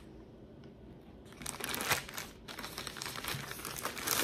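Plastic shipping mailer crinkling as it is handled and pulled open, starting about a second in and growing louder toward the end.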